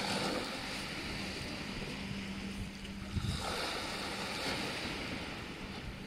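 Small waves breaking and washing up on a pebble beach. The surf swells right at the start and again about three seconds in. Wind rumbles on the microphone, and a faint steady hum sits underneath.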